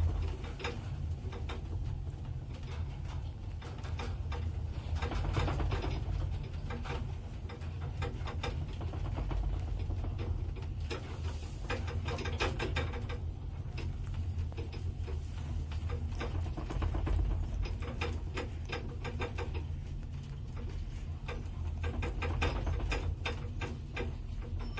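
Ride noise inside a 1977 Zremb elevator car travelling down: a steady low rumble with repeated bursts of clicking and rattling.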